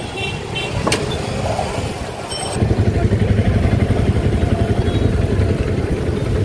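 Motor vehicle running on the road: a low rumble that grows louder and steadier about two and a half seconds in, with a sharp click about a second in.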